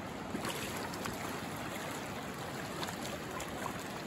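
River water lapping and running over the rocks at the edge, with a few light splashes from wading in the shallows.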